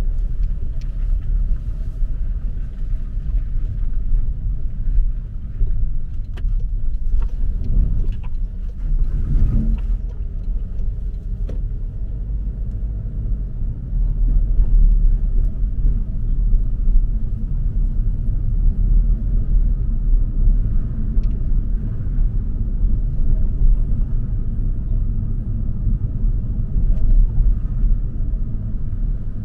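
A car's steady low engine and road rumble heard from inside the cabin while driving slowly, with a brief swell about a third of the way in and a few faint knocks.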